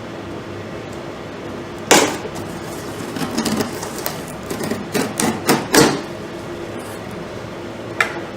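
Cardboard vacuum-cleaner box being opened by hand, its tape and flaps pulled: a sharp knock about two seconds in, then a run of cardboard rustles and knocks, and one more click near the end, over a steady low hum.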